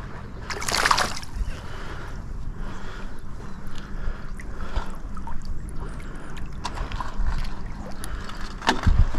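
Shallow water sloshing and lapping as a small fish and seaweed are handled at the surface, over a steady low wind rumble on the microphone. A louder rush of splashing comes about a second in, and a sharp splash near the end.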